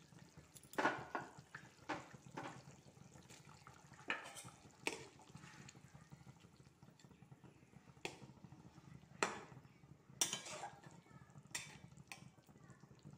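A utensil knocking and scraping against a metal cooking pot while a whole chicken is placed and turned in boiling curry gravy, with the liquid sloshing. About ten separate sharp knocks, spread irregularly.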